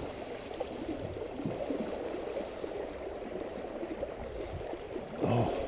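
Creek water running steadily in a fast current.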